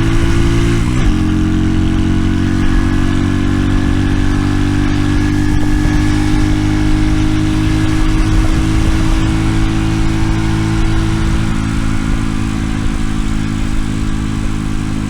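RPS Racer 140 pit bike's single-cylinder four-stroke engine idling steadily through a new stainless steel side-exit exhaust at about 1100 RPM, louder than the owner wants. The pitch creeps up slightly in the first few seconds, then holds.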